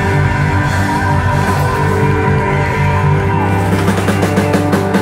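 Live country-rock band playing loud on stage, electric and acoustic guitars with keyboard, holding long chords, with a run of quick, evenly spaced strokes building up near the end.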